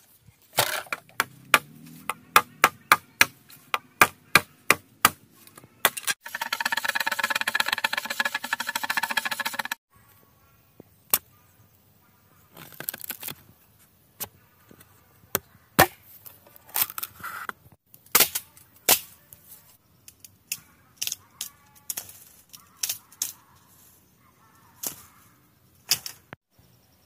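Bamboo being chopped: a quick run of sharp blows, then a few seconds of continuous rasping noise, then scattered single knocks and cracks.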